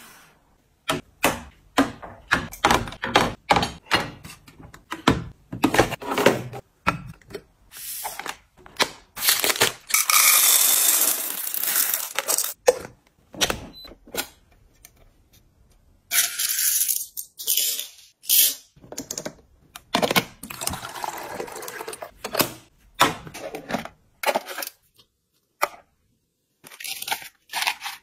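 Close-up handling sounds: many light clicks, taps and clacks as items are set into a clear plastic tiered rack and onto a coffee appliance. Two longer stretches of steady hissing noise, one about a third of the way through and one just past the middle.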